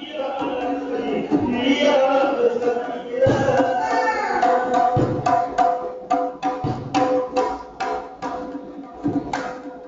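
Men singing a folk chant into microphones over a hand-played two-headed barrel drum. The sharp drum strokes come faster and stand out more in the second half.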